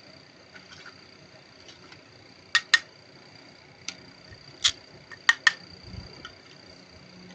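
Small hard plastic toy pieces clicking and tapping as they are handled: two quick louder clicks about two and a half seconds in, single clicks around four and four and a half seconds, another quick pair a little after five seconds, and fainter ticks between.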